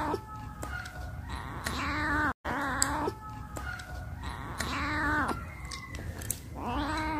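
Domestic cat meowing repeatedly: about four drawn-out meows, each rising and then falling in pitch, with short pauses between them.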